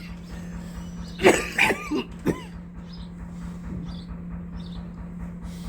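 A person coughing and clearing their throat in a few short bursts about a second in, over a steady low electrical hum.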